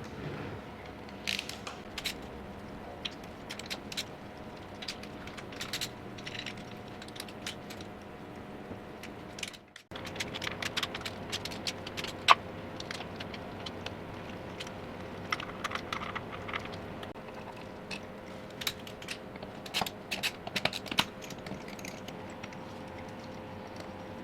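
Hand tools clicking and clinking on metal, in irregular light taps and short flurries, as the casings are unbolted from a Ducati 916 V-twin engine.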